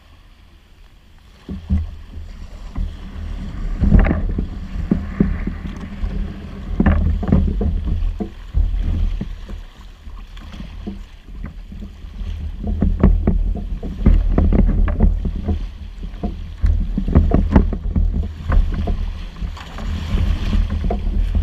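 Small waves lapping and slapping against a kayak's hull in irregular splashes, with paddle strokes in the water later on. Wind rumbles on the microphone throughout.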